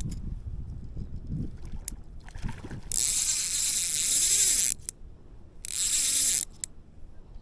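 Water splashing in loud bursts, twice at length after a short faint one: a big trout thrashing in the landing net.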